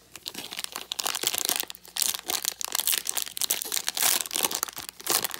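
Plastic foil wrapper of a 2018 Topps Series 2 baseball card pack crinkling and tearing as it is pulled open by hand, with a dense run of sharp crackles.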